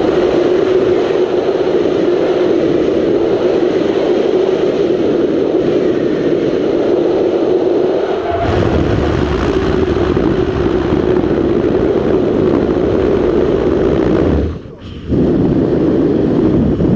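Wind rushing over a helmet camera on an unpowered hang glider in flight: a loud, steady rush with a droning hum. The rush turns deeper and heavier about eight seconds in, and cuts out for a moment shortly before the end.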